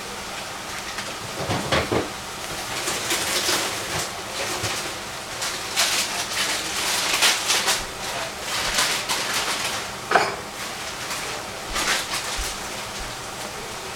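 Shredded cabbage and capsicum sizzling in a stainless steel saucepan over a gas flame, a steady hiss with irregular crackles and one sharper pop about ten seconds in.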